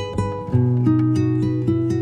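Background music on acoustic guitar, plucked notes at a steady beat.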